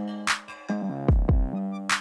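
Background electronic music with a drum-machine beat: deep kick drum hits, sharp snare and hi-hat strikes over held synth chords.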